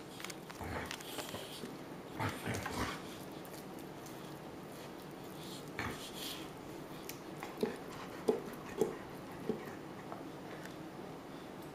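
An Akita-husky mix dog licking and gnawing at a rubber Everlasting Treat Ball, snorting and grunting through her nose as she works at the treat inside. Near the end come four sharp clacks as the toy knocks about.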